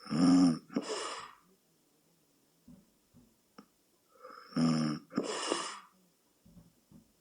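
A sleeping person snoring: two snores about four and a half seconds apart, each a low pitched snore that runs straight into a rushing, hissy breath.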